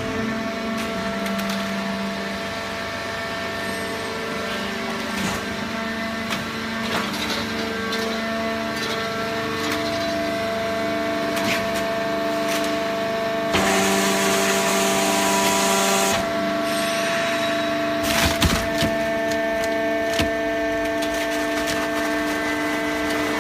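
Fully automatic horizontal hydraulic baler for waste cardboard running: a steady hum from its motor and hydraulic pump, with scattered cracks and clicks. About 14 seconds in comes a two-second burst of hiss.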